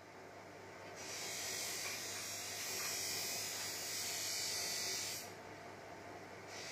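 Faint, steady high-pitched buzzing hiss that comes up about a second in and drops away after about five seconds, over a low steady hum.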